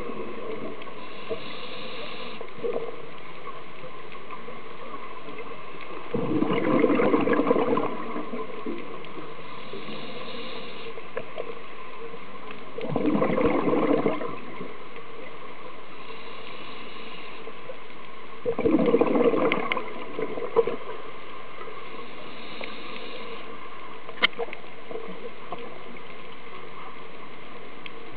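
Scuba diver breathing through a regulator underwater: a burst of exhaled bubbles every six seconds or so, each lasting one to two seconds, with a faint hiss of inhalation between them. A single sharp click sounds about three-quarters of the way through.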